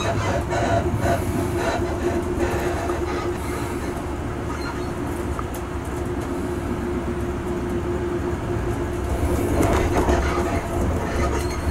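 Train running along the rails: a steady low rumble with a constant hum and the clatter of wheels over the track.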